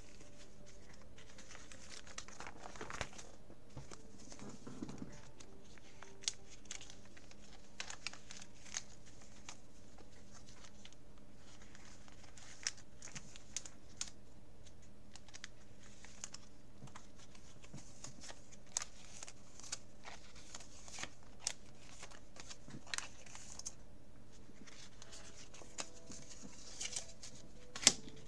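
Clear plastic binder pocket pages rustling and crinkling as trading cards are slid in and out of the sleeves and a page is turned, with scattered soft clicks and taps, the sharpest one near the end.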